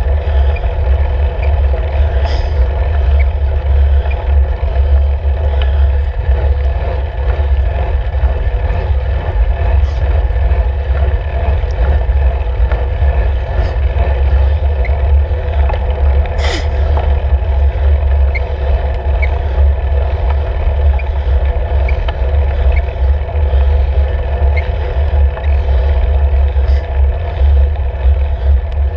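Wind buffeting and road vibration picked up by a camera mounted on a road bike's handlebars while riding: a loud, steady low rumble with a fainter hum above it. A few sharp clicks and rattles from the bike and mount cut through, the strongest about halfway through.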